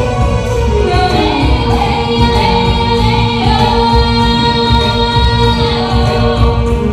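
Live amplified music at a sound check: singing over a band with a steady heavy low beat. About a second in the voice slides down into one long held note that lasts almost to the end.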